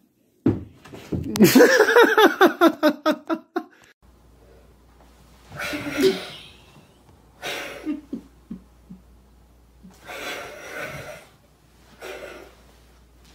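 A person laughing hard: a loud run of about eight quick, rhythmic bursts that ends after about three seconds. After it come several quieter, breathy bursts spaced a second or two apart.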